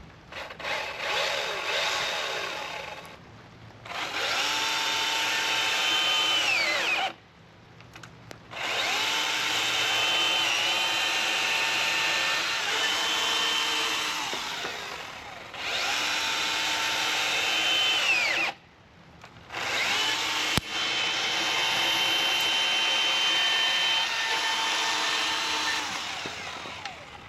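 Milwaukee M18 battery-powered top-handle chainsaw cutting wood in about five runs with short pauses between them, its electric motor whine steady in the cut and twice falling in pitch as it slows and stops. The owner says the saw keeps stalling out in the cut even under light pressure.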